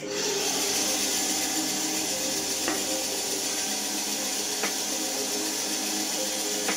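Bandsaw running with a steady hiss, with two faint ticks partway through.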